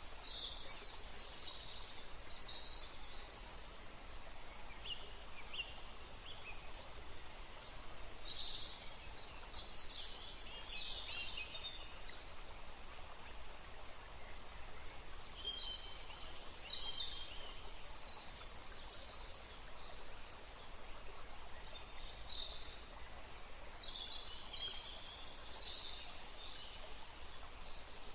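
Songbirds chirping in bouts of quick, high notes every several seconds, over a steady background hiss.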